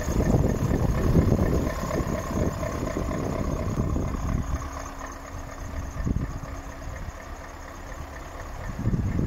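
Scania S580 tractor unit's 16-litre V8 diesel idling. An uneven low rumble lies over it, heavier in the first few seconds and again near the end, with a steady low hum showing through in between.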